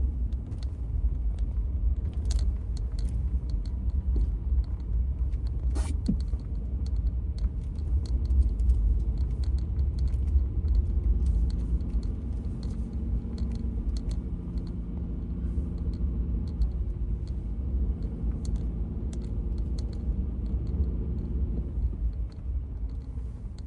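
Steady low rumble inside a car driving slowly on a snow-covered road, with a faint engine hum. Scattered small clicks and knocks, the clearest about six seconds in.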